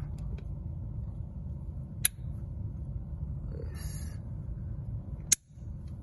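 Diagonal cutters snipping a nylon zip tie: two sharp snaps, about two seconds in and again near the end, over a steady low hum.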